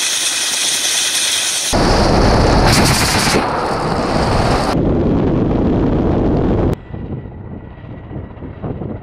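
Kamov Ka-52 attack helicopter across edited shots. It opens with rotor and turbine noise close up. About two seconds in comes a louder, dense noise with a heavy low end, which cuts off abruptly about seven seconds in, leaving the quieter, uneven sound of the helicopter flying at a distance.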